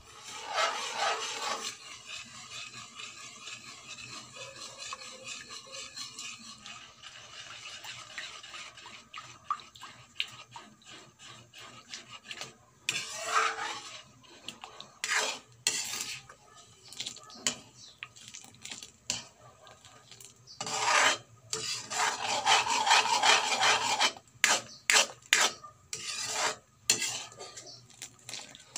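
Metal ladle stirring a creamy liquid in a metal wok: irregular rasping scrapes against the pan, with sharp clinks of metal on metal. The scraping comes in spells, loudest about two-thirds of the way through.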